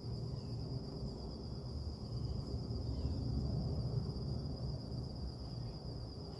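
Steady high-pitched trill of crickets over a low, steady rumble of background noise.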